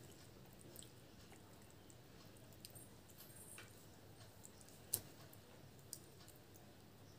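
Faint close-up eating sounds: soft chewing and wet squishing as fingers tear and dip puri into ghugni, with scattered small ticks and a sharp click about five seconds in, then a smaller one a second later.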